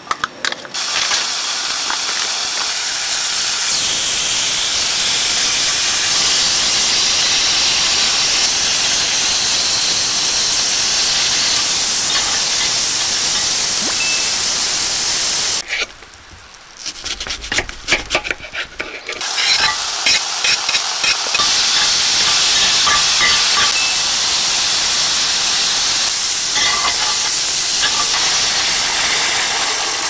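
Dumplings frying in hot oil in a pan, sizzling with a loud, steady hiss. About halfway through the sizzle stops for roughly three seconds, with a few clicks and taps, then starts again.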